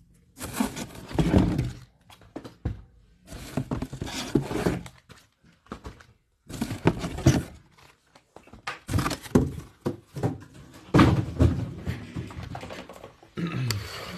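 Cardboard case being handled right against the microphone: repeated rubbing, scraping and dull thuds in bursts of a second or two.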